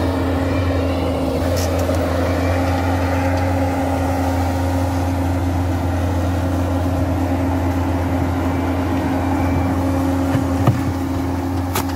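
Compact track loader's diesel engine running steadily with an even low drone while its bucket shoves large limestone boulders. A sharp knock about ten and a half seconds in, and another click near the end.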